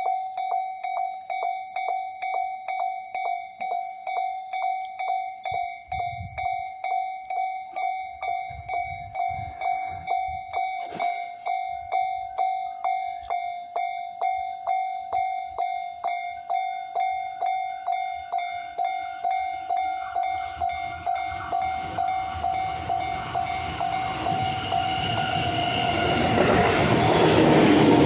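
Japanese level-crossing warning bell ringing steadily, about two dings a second. From about twenty seconds in, an approaching train's running noise rises under it and is loud near the end.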